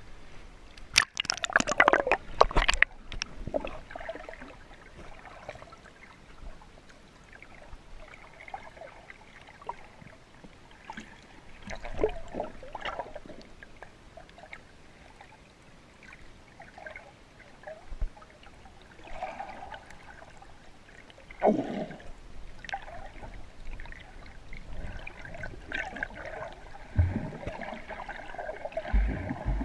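Splashing as the camera goes from the sea surface under the water, loudest in the first few seconds. It is followed by muffled underwater sound with scattered gurgles and bubbles.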